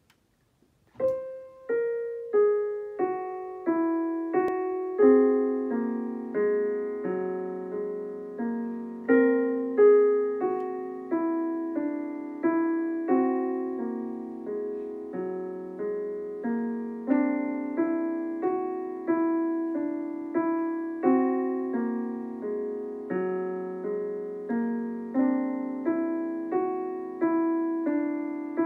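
Digital piano played at a slow, even pace, a new note or chord about every second, each one ringing and fading. The playing begins about a second in.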